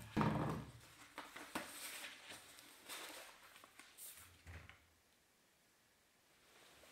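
A dull thump right at the start, then a large paper poster rustling and crackling as it is unrolled and smoothed flat on a table. The rustling stops a little under five seconds in.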